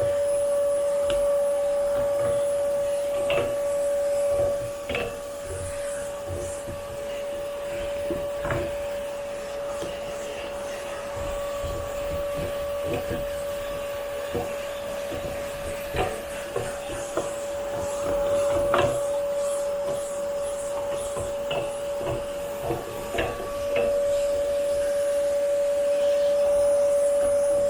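Vacuum cleaner running steadily with a constant whine as it works over upholstered furniture, with scattered clicks and knocks from the nozzle against the cushions and frame; it runs a little quieter through the middle.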